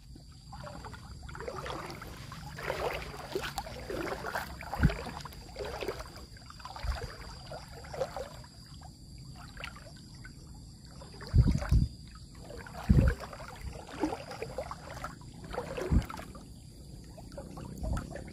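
Water lapping and sloshing close to the microphone, with a few short low bumps at irregular times.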